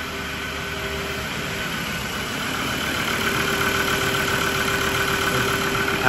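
Ford Ranger's 3.2-litre five-cylinder diesel idling steadily on its first run after a piston replacement, getting louder toward the end.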